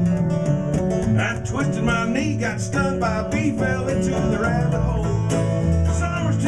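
Acoustic string band playing a country-bluegrass tune: strummed acoustic guitar, banjo and mandolin together at a steady tempo.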